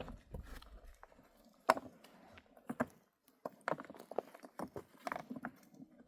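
Irregular knocks and clatters, about a dozen sharp strikes at uneven spacing, the loudest a little under two seconds in.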